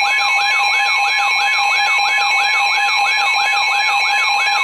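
Weather radio alert alarm: a siren-like tone sweeping up and down about three times a second over steady tones. It signals an incoming warning broadcast.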